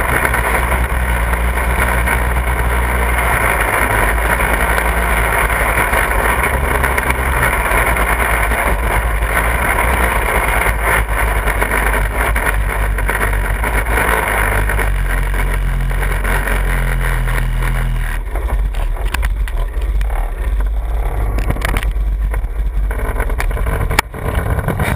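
Small off-road buggy driving along a dirt trail: a steady motor drone with wind and rolling noise over it, its pitch stepping up and down as the speed changes. About 18 seconds in the drone drops away, and near the end there are knocks and rubbing on the microphone.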